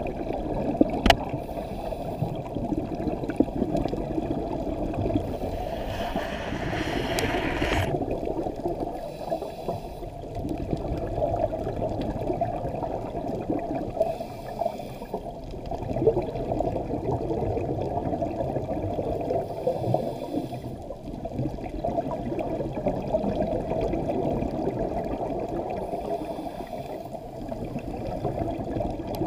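Muffled underwater rushing noise recorded by a GoPro inside its waterproof housing, with a couple of sharp clicks near the start and a louder, brighter rush lasting about two seconds, starting about six seconds in.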